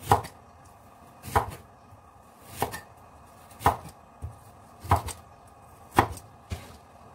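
Cleaver slicing through raw sweet potato, a sharp chop about every second and a quarter, six in all, with a couple of lighter taps in between.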